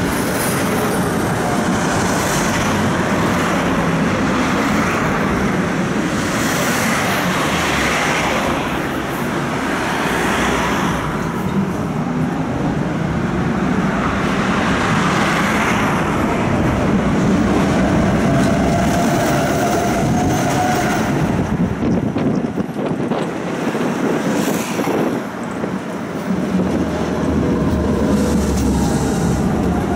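Budapest tram in motion, heard from inside the car: wheels running steadily on the rails, with a whine that glides up and down in pitch several times as the tram speeds up and slows.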